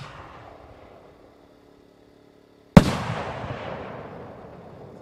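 3-inch aerial firework shell breaking with one loud bang about three seconds in, followed by a long rolling echo that fades slowly. At the start, the echo of the mortar launch fired just before dies away.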